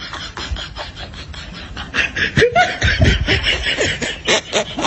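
Stifled laughter and snickering in short breathy bursts, getting louder about two seconds in.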